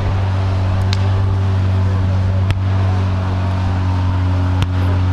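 Tank engine running at a steady pitch, a deep continuous hum. A few short sharp clicks or cracks sound over it, about a second in, midway and near the end.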